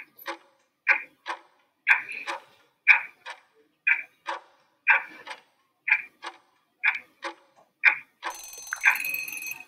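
Countdown-timer sound effect: a clock ticking tick-tock, one pair of clicks each second. About eight seconds in, an alarm sounds for about a second and a half, marking time up.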